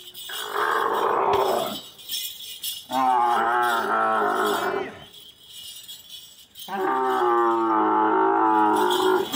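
Dromedary camel bellowing with its mouth wide open: three long, wavering calls with short pauses between them.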